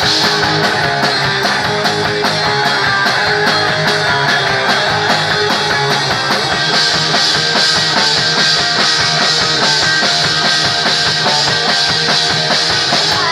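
Punk rock band playing live, with electric guitar and drum kit, cymbals ringing over a steady drum beat.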